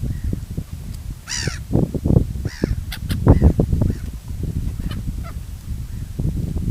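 Gulls calling: a few short, harsh calls, the clearest about a second in, over a steady low rumble.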